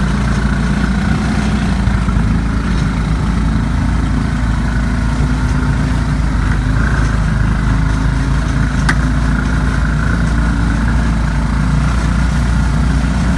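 Small ATV buggy engine running steadily, heard from on board while riding.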